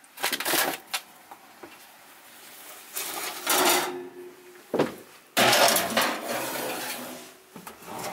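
Cast iron skillet being put into an oven: a series of knocks, clatters and scrapes of metal on metal as the pan is handled and slid in, the longest and loudest scrape about two-thirds of the way through.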